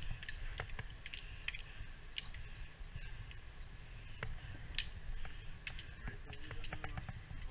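Scattered light clicks and taps of tools and rope-access gear being handled, over a low steady rumble.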